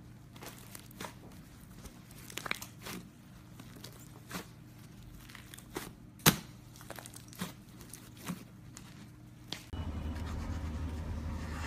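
Thick slime being stretched, pressed and folded by hand, giving irregular sticky pops and crackles, the loudest about two thirds of the way in. Near the end a steady low hum comes in.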